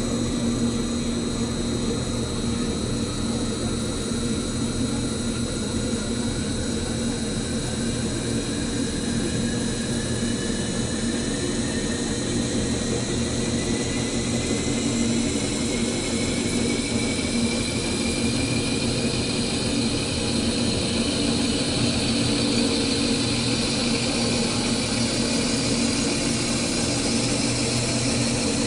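CNC metal spinning lathe running, its forming roller pressing a spinning metal disc into a cone over a mandrel: a steady machine hum, with a fainter higher tone that slowly rises in pitch as the forming goes on.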